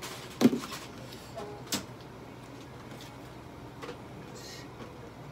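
Handling noises during a cat's exam: a loud knock about half a second in, a sharp click a little over a second later, and a short rustle near the end.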